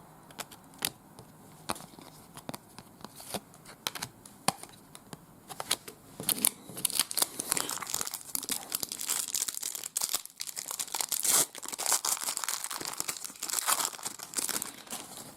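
Trading card pack wrapper being torn open and crinkled, preceded by a few seconds of scattered light clicks from cards being handled.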